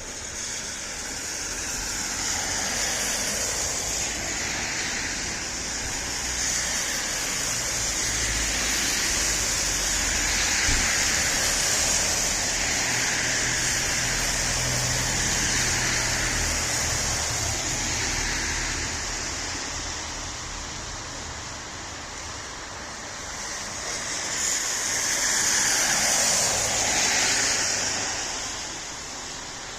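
Road traffic: vehicles passing in a steady hiss of tyre and engine noise that swells and fades as they go by, with a louder pass near the end.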